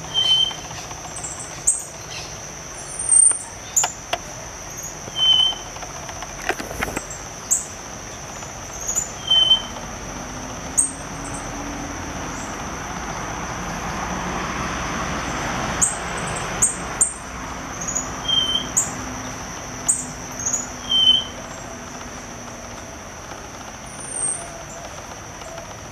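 White-striped warbler (Myiothlypis leucophrys) singing loud, short, sharp notes at irregular intervals of one to three seconds. A steady high insect drone runs underneath.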